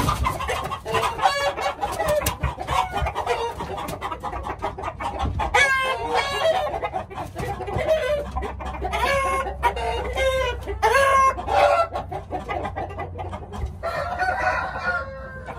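Roosters and hens clucking and crowing, several birds calling over one another throughout.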